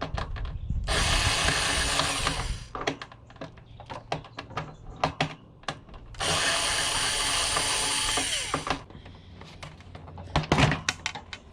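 Power drill-driver run twice for about two seconds each, backing screws out of a tower heater's casing. Short clicks and knocks of handling the parts and screws come between and after the two runs.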